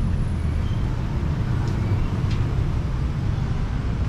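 Steady low rumble of street traffic, with a couple of faint short ticks.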